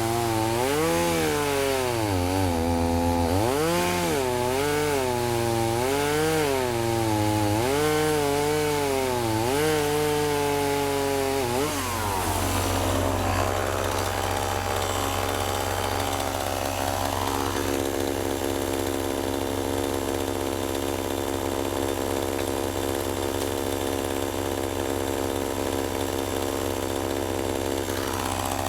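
Two-stroke chainsaw cutting through a large log. Its engine pitch wavers up and down for about the first twelve seconds, then runs steadier.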